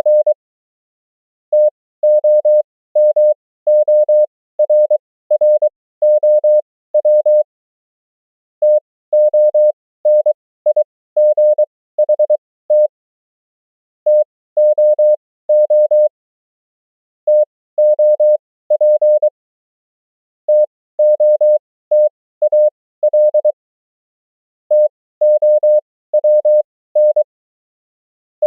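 Morse code (CW) keyed as a single steady tone, sending common amateur-radio words and abbreviations one after another at 20 words per minute, with characters at 23 wpm. Each word is a quick run of dots and dashes, followed by a pause of a second or more before the next.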